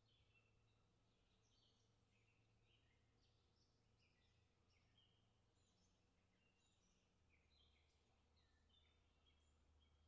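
Faint chorus of songbirds: many short high chirps and trills overlapping throughout, over a low steady hum.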